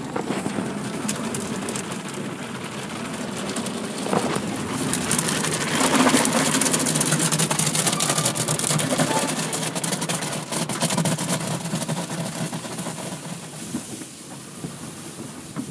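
Automatic car wash heard from inside the car: water spraying and brushes washing over the windshield and body, over a steady low machine rumble. It is loudest about six seconds in and eases off near the end.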